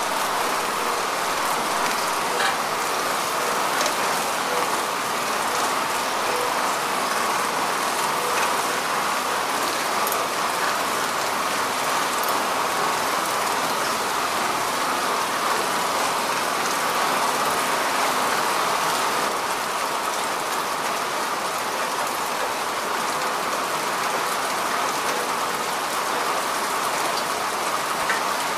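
Heavy rain falling steadily: an even hiss with scattered sharper ticks of single drops.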